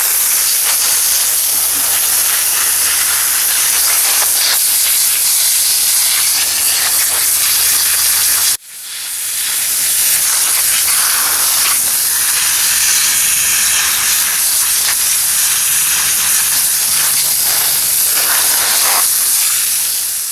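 Water spraying hard in a steady hiss, rinsing soil off freshly dug ginger rhizomes. It cuts out sharply about eight and a half seconds in and builds back up within a second.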